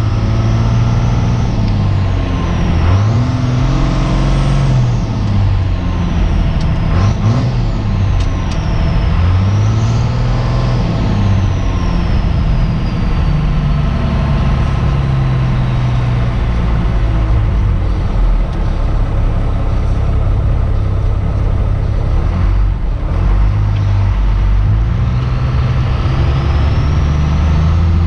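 Cummins turbo-diesel truck engine heard from inside the cab while driving. It pulls up through the revs and drops back twice in the first half, with a turbo whistle rising and falling along with it, then runs steadier at cruise.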